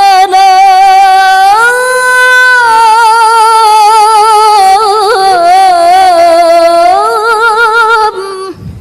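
A woman reciting the Quran in melodic tilawah style, drawing out one long melismatic note. The held note steps up in pitch about a second and a half in, then wavers with ornaments, rises again near the end, and breaks off shortly before the end.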